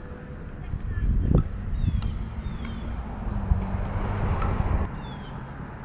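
Cricket chirping steadily, about three short high chirps a second, over a low rumble of wind and handling noise on the microphone.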